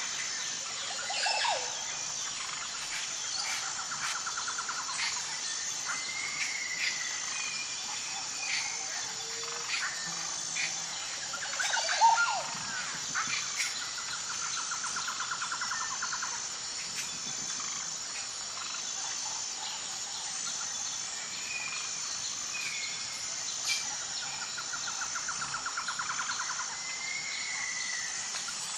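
Birds calling over a steady, high, pulsing insect chorus. The calls are sliding whistled notes and a few rattling trills, with one sharp louder chirp about halfway through.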